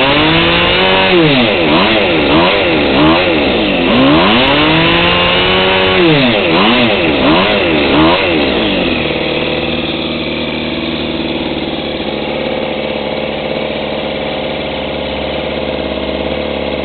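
Small engine of a home-made RC boat revved up and down in quick throttle blips for about nine seconds, then settling to a steady idle.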